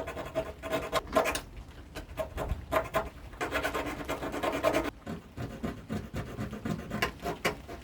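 Hand file scraping along the edges of a cut metal patch piece in repeated strokes, with one longer stroke about halfway through.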